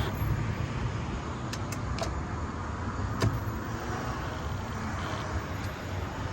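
Steady low background rumble, with a few sharp clicks, the loudest about three seconds in.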